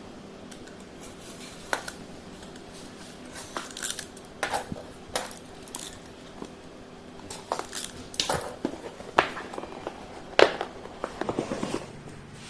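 Keyboard's cardboard box being unsealed and opened by hand: irregular taps, scrapes and short rustles as the seal stickers are peeled and the packaging handled.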